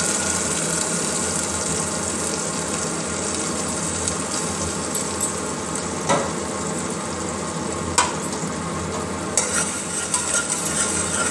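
Onion, garlic and tomato paste sizzling steadily in hot mustard oil in a pressure cooker as it is fried. A spoon knocks sharply against the pot twice, about six and eight seconds in, and stirring clatters over the sizzle near the end.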